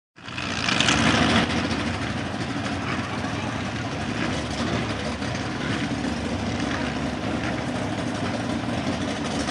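Pro street Ford mud bog truck's engine running steadily at the start of the pit, heard from a distance, louder for the first second or so after the sound comes in.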